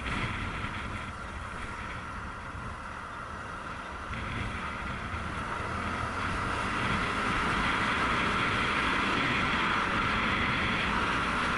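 Honda CRF250L's single-cylinder four-stroke engine running on the road, mixed with wind rush over the helmet-mounted camera. The sound grows louder from about four seconds in and holds steady from about seven seconds on.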